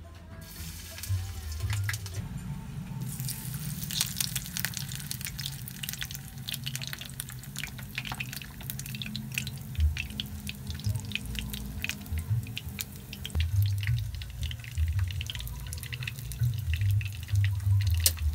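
Breaded nuggets frying in shallow hot oil in a pan, the oil crackling and spitting steadily; the crackle thickens about three seconds in. Background music plays underneath.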